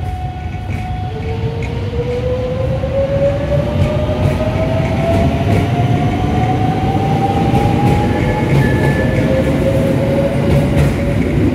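JR West 681 series electric train pulling away from a standstill. Its traction motor whine climbs steadily in pitch as it accelerates, over a low rumble from the wheels and running gear.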